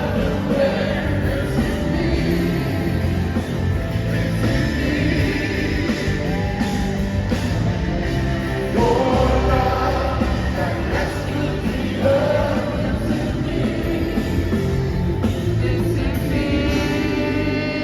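Worship band playing with voices singing a worship song, a full band sound with drums and bass.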